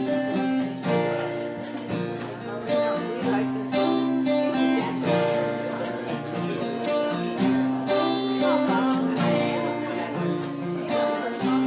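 Live acoustic band playing a song's opening on strummed acoustic guitar, with a steady rhythm of chords.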